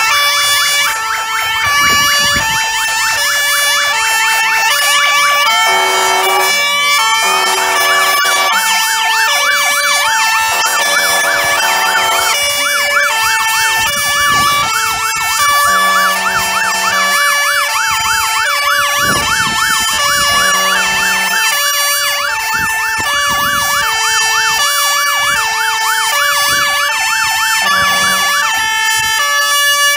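Fire engine sirens sounding together without a break: a stepped two-tone hi-lo pattern overlapping a fast, repeating rising-and-falling yelp, with a siren sweeping upward about six seconds in.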